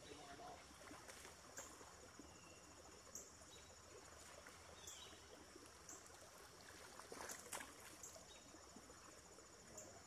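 Faint, high-pitched insect calls repeating in short pulses about every second and a half. A brief cluster of clicks comes about seven seconds in.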